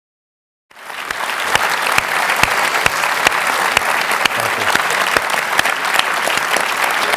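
Audience applause: dense, steady clapping from a full house that starts suddenly about a second in.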